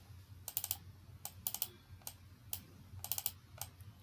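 Computer keyboard keys clicking in short irregular clusters of quick keystrokes, over a faint steady low hum.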